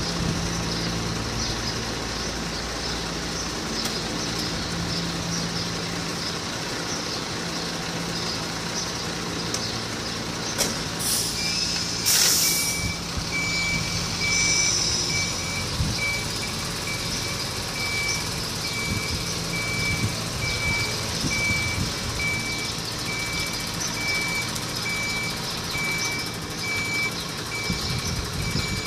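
Box truck's engine idling, then a short hiss of air brakes released about twelve seconds in, followed by the truck's reversing alarm beeping evenly at one high pitch as it manoeuvres.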